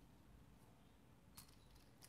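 Near silence, with one faint click of a 3x3x3 Rubik's Cube layer turning about a second and a half in.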